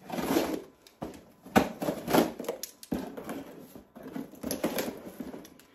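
Parcel packaging rustling and crinkling in irregular bursts as it is handled and opened by hand.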